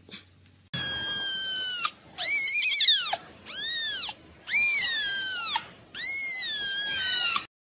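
A young kitten mewing loudly: five high-pitched cries of about a second each, arching up and then falling in pitch.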